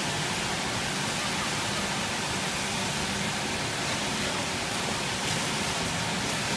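Steady rushing hiss, the background noise of a large air-conditioned indoor snow hall, with faint voices in the background.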